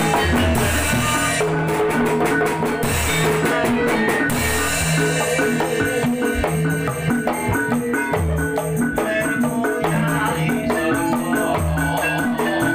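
Javanese gamelan ensemble playing barongan accompaniment: hand-struck kendang drums drive a busy, steady rhythm over the sustained ringing of bronze gongs.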